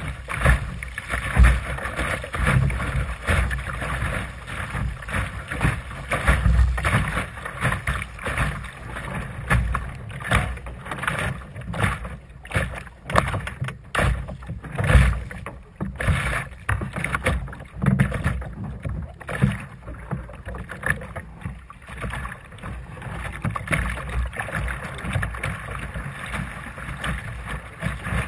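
Water splashing and rushing along the hull of a Sunfish sailing dinghy under way, in uneven surges, with wind buffeting the microphone in low gusts.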